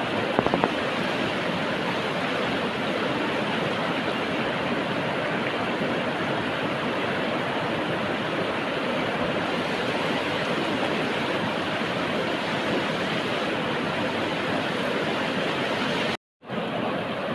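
River water rushing steadily over rocks, with a few sharp clicks about half a second in. The sound cuts out briefly near the end.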